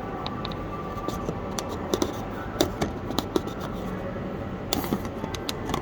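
Irregular small clicks and scrapes of a diesel fuel filter housing being wound back together by hand, the threads not taking at first.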